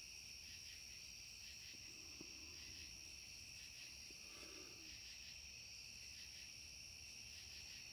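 Near silence: room tone with a faint, steady high-pitched ring.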